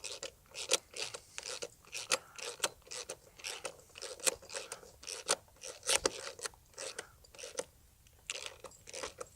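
Ratchet wrench turning a bolt into a gate latch plate, a run of short rasping clicks about three a second as the handle is swung back and forth, drawing the bolt in before final tightening.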